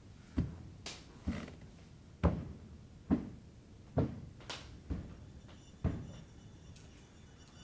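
Seven slow, heavy thuds from overhead, about one a second, with a couple of sharper clicks between them, then quiet near the end.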